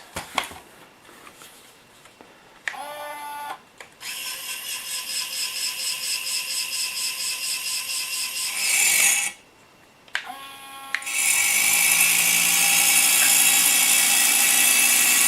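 Small electric motor and gearing of a 1/16 scale RC skid steer's rotary sweeper attachment spinning the brush. It starts and stops several times, each start a short rising whine, pulsing for a few seconds in the middle, then runs steadily near the end.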